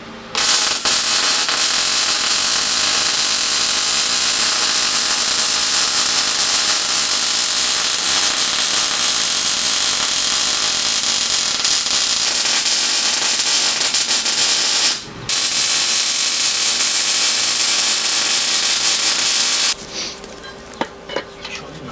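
Electric welding arc crackling in two long runs: one of about 15 seconds, a brief break, then about four more seconds, each starting and stopping abruptly.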